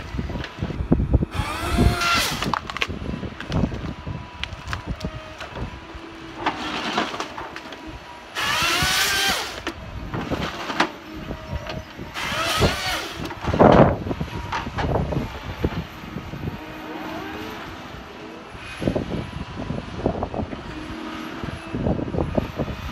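Tigercat tracked harvester at work, its diesel engine and hydraulics running under load, with three loud bursts of rising whine from the harvester head and sharp cracks of branches and timber being handled.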